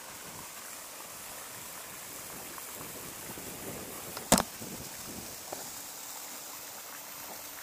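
Steady outdoor background noise with one sharp, loud knock a little over halfway through.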